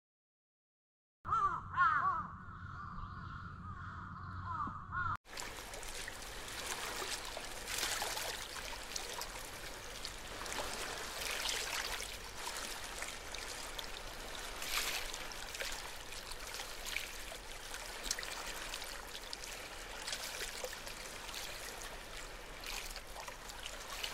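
A crow cawing repeatedly for a few seconds, cut off abruptly. Steady outdoor background noise follows, with faint scattered rustles and ticks.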